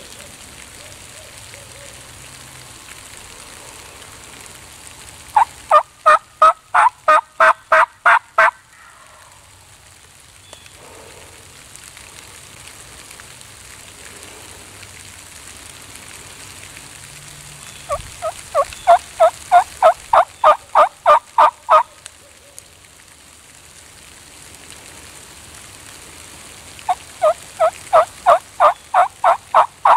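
Turkey yelping: three series of loud, evenly spaced yelps, about four notes a second, each series lasting three to four seconds. They come about six, eighteen and twenty-seven seconds in, and the last runs on past the end.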